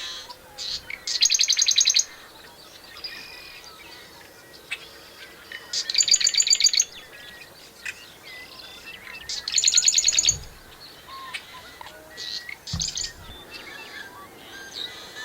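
Marsh wren singing: three short, fast rattling trills, each under a second, about four seconds apart, with fainter chirps of other marsh birds in between.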